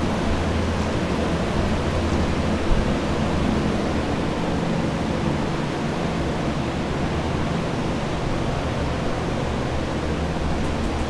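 Water-damage drying equipment running: air movers and dehumidifiers giving a steady rushing fan noise with a low hum underneath.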